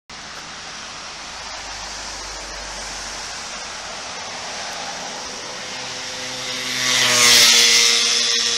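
Gilera Runner SP50 scooter's two-stroke 50 cc engine, derestricted and running on its stock exhaust, approaching and passing. The engine grows louder to a peak near the end, and its pitch drops slightly as it goes by.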